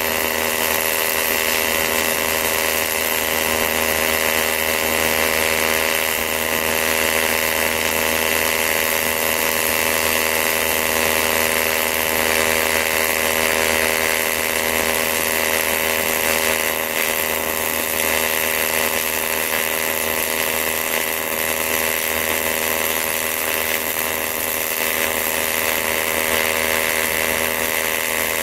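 AC TIG welding arc burning on aluminium, a steady buzzing hum with hiss that does not break while the bead is laid.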